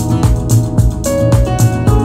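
Music with a steady beat and a bass line.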